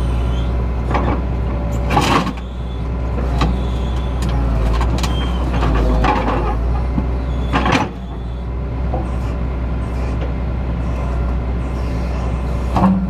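Excavator engine running steadily with a low drone, with a few sharp knocks several seconds apart.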